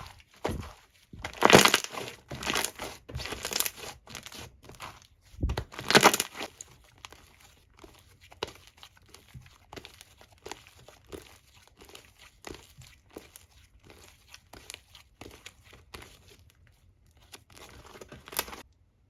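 Foam slime being squeezed and pressed by hand, giving a dense crackling and crinkling with several louder squishes in the first six seconds. The crackles then grow softer and sparser and stop near the end.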